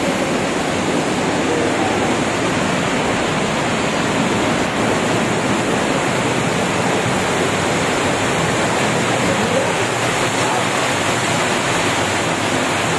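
Muddy floodwater rushing and churning through a flooded passage: a loud, steady rush of water that does not let up.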